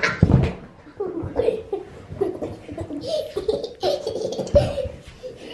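Young child laughing in repeated bursts while playing, with a couple of thumps of a ball on the floor, one at the start and one about four and a half seconds in.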